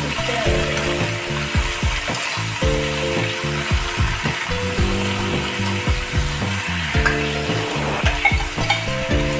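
Food sizzling in hot oil in a pan, under background music with a steady beat and low sustained notes that change every half second or so.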